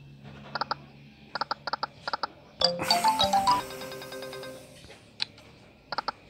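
Online slot game sound effects: short clicks as the spinning reels stop, then about two and a half seconds in a bright chiming win jingle, followed by steady held tones that fade away. More clicks come near the end as the next spin starts.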